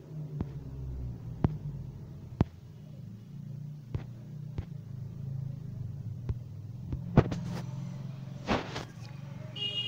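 Steady low background hum, with sharp single clicks every second or so.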